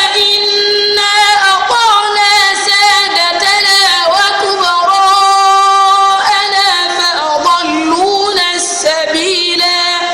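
A child's high voice reciting the Quran in a melodic chant, holding long steady notes and sliding in ornamented turns between them.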